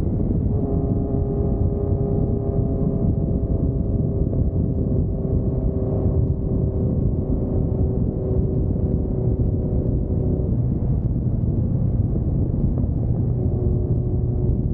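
Honda CB1300 inline-four motorcycle engine running at a steady cruise, with low road and wind rumble. The sound is muffled, with little high end. The engine note changes about ten seconds in and settles lower near the end.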